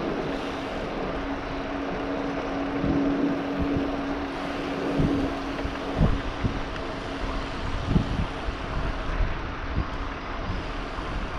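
Wind buffeting the microphone of a handlebar-mounted camera on a moving bicycle, with road noise and gusty low thumps throughout. A steady hum runs under it for the first several seconds, then fades.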